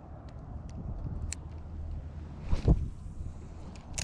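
Wind rumbling on the microphone out on an open boat, a steady low noise, with a loud thump about two and a half seconds in and a few light clicks.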